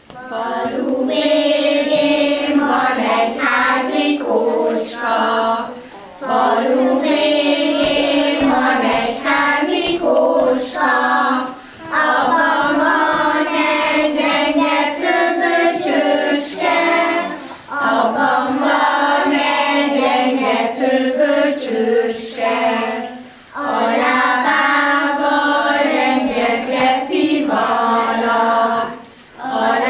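A group of young children singing a song together, in phrases broken by short pauses for breath about every six seconds.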